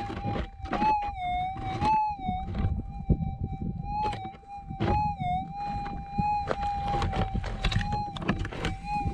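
Gold metal detector's steady threshold hum, which rises and dips in pitch several times as the coil is swept over a target: the detector signalling a possible nugget. Scuffs and knocks of the coil and feet on stony ground run beneath it.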